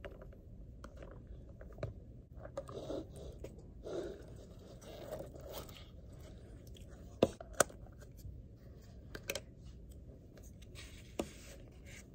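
Plastic utensil scraping rice out of a plastic takeout tray, then food containers and their lids being handled, with a few sharp plastic clicks; the two loudest come about seven seconds in, half a second apart.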